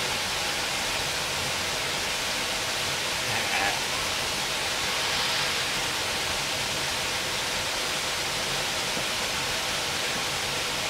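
Steady, even rush of water falling from a large waterfall.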